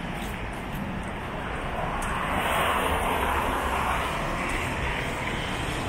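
City street traffic: a steady rush of vehicles passing on a wet road, swelling briefly around the middle as one passes closer.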